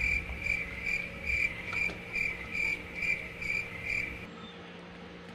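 Cricket chirping: about ten short, high chirps at an even pace of roughly two a second, stopping abruptly a little after four seconds in.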